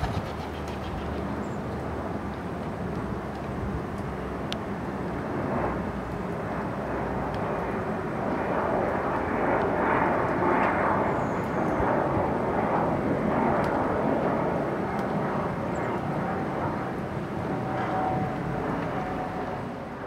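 Distant engine noise: a steady rushing hum that swells to its loudest about halfway through and eases off a little toward the end.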